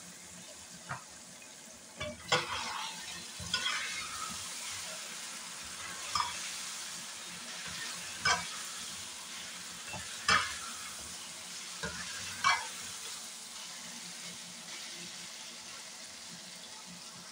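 Chicken and okra masala sizzling as it fries in a metal pot while it is stirred, the utensil scraping against the pot about every two seconds. The scrapes stop a few seconds before the end, leaving only the sizzle.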